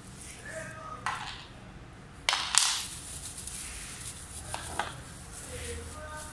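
Bubble wrap crinkling and crackling as it is handled, with a loud burst of sharp crinkles about two and a half seconds in and a few smaller ones before and after.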